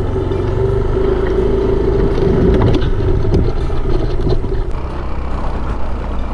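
Yamaha Aerox 155 scooter's single-cylinder engine running under way, a steady drone that eases off about three-quarters of the way through. A few knocks and rattles sound around the middle, as the scooter rides over rough ground.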